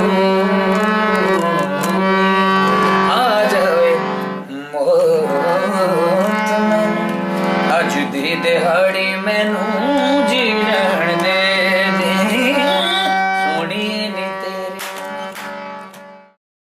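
A man singing a Punjabi song in wavering, ornamented phrases over a harmonium holding a steady low drone. The music dips briefly about four seconds in, then fades and cuts off near the end.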